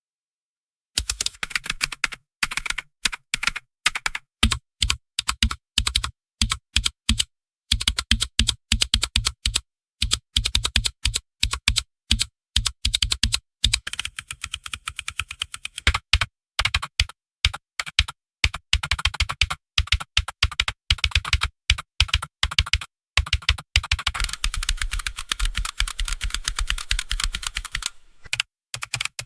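Typing on a computer keyboard: rapid, irregular key clicks in bursts, with short pauses between runs of keystrokes.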